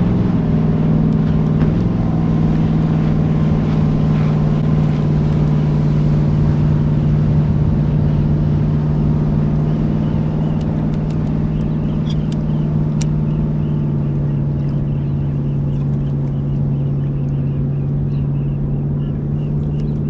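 Boat motor running steadily with a low, even hum, its pitch dropping slightly a second in and again near the end, with a few faint ticks in the middle.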